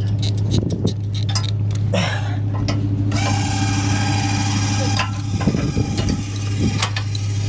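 A small motor whirring steadily over a constant low hum, with scattered metallic clicks: power-tool or motor work on the camper's hitch and jacks.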